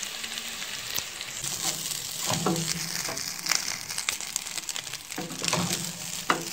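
Fried rice with egg and mixed vegetables sizzling steadily in a stainless steel pot as a wooden spoon stirs it, with scraping and clicks of the spoon against the pot.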